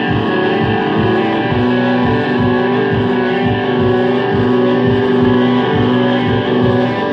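Live rock music led by an Epiphone electric guitar played through effects, with held notes over a steady pulse of picked strokes.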